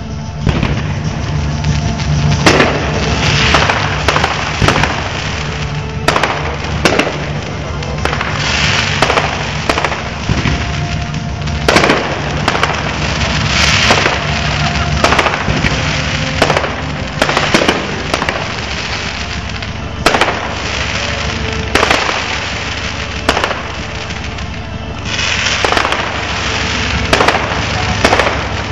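Fireworks display: aerial shells bursting in a run of sharp bangs every second or two, with hissing and crackling between the reports.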